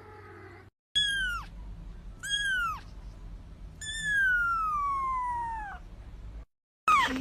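A kitten meowing three times in a high voice: two short falling meows, then one long meow of about two seconds that slides steadily downward in pitch.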